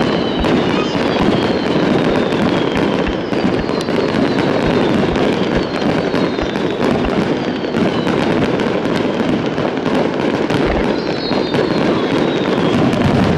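Fireworks going off in a rapid barrage, a star mine: dense, continuous crackling and popping with many sharp reports, and several high whistles that each fall slightly in pitch.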